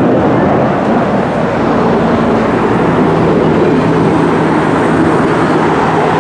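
Loud, steady roar of an F-35 fighter jet's single turbofan engine, with a steady low hum coming in under the rushing noise about three seconds in.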